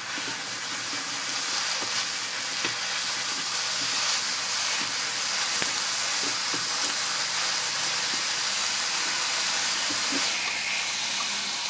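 Sliced beef bulgogi sizzling steadily in a hot pan with no oil as it is stir-fried with chopsticks, with a few light clicks of the chopsticks against the pan. The sizzle eases off a little near the end.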